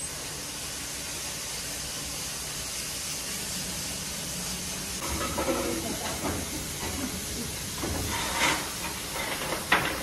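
Steady steam hiss from the C12 66 tank steam locomotive standing at the platform. Several knocks come in the second half, the sharpest near the end.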